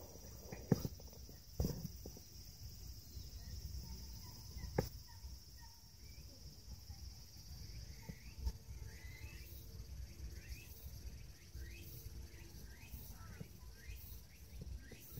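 Quiet outdoor park ambience with a steady high hiss, a few soft thumps in the first five seconds, and faint short falling chirps in the second half.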